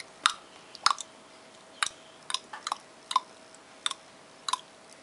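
A baby making a series of about nine sharp clicking mouth sounds, irregularly spaced.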